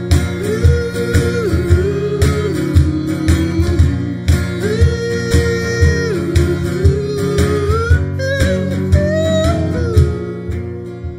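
Live acoustic duo: an acoustic guitar strummed along with a cajón keeping a steady beat, under male vocals holding long notes. The playing drops in level near the end.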